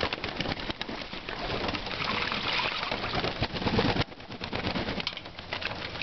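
Young racing homer pigeons splashing and flapping in a shallow pan of bathwater, a dense patter of small splashes busiest in the middle, with pigeons cooing.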